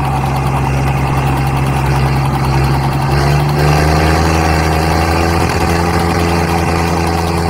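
Diesel engines of a John Deere 5050D and a Mahindra tractor running hard under load as they pull against each other in a tug-of-war. About three seconds in the engine note changes, with a new higher tone rising in as revs climb.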